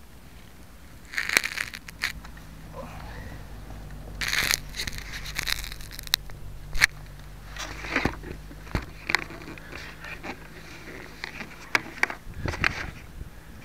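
Handling noise on a model plane's onboard keychain camera: irregular crackles, scrapes and sharp knocks as the plane is moved about and lifted, over a faint steady low hum.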